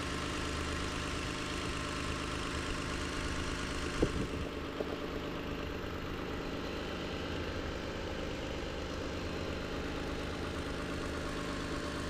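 The 3.5-litre 2GR-FKS V6 of a 2018 Toyota Sienna idling steadily, with a brief knock about four seconds in. The mechanic suspects a bad engine ground behind its ignition-coil misfire codes.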